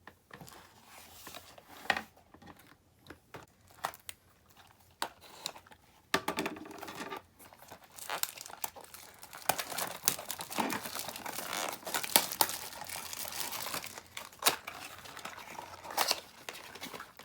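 Packaging of a Shopkins Real Littles blind box being handled and torn open: a few scattered clicks and rustles, then from about six seconds in a steady run of crinkling and tearing.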